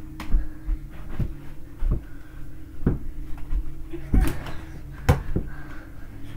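Irregular thumps and knocks of indoor mini-basketball play: feet on the floor, bodies bumping and a small ball being handled and bounced, the loudest knocks about four and five seconds in. A steady low hum runs underneath.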